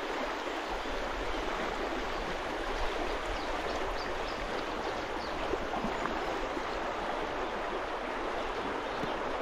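A shallow river running fast over a stony riffle: a steady rush of flowing water.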